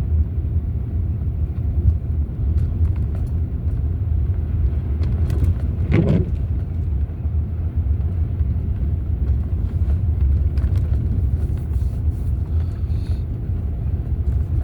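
A car driving, heard from inside the cabin: a steady low rumble of engine and road, with one short louder noise about six seconds in.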